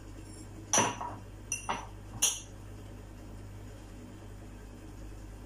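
A glass clinking against a glazed earthenware mixing bowl while oil is poured from it: four sharp knocks with a brief high ring, within about a second and a half.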